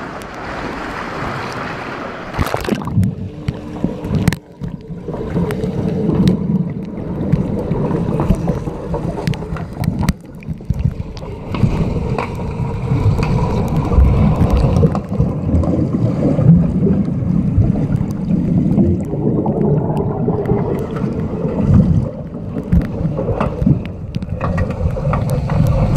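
Swimmers splashing at the pool surface, then, about three seconds in, the sound turns to the muffled low rumble of water heard from an underwater camera, with scattered knocks from the underwater hockey players on the pool floor.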